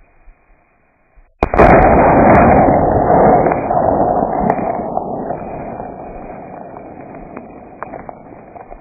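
A single .38-55 rifle shot about a second and a half in, followed by a long rumble that fades slowly over several seconds.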